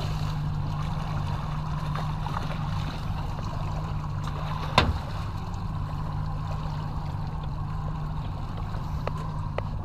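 Boat's outboard motor idling with a steady low hum while water splashes at the stern as a large striped bass is landed. A single sharp knock sounds about five seconds in.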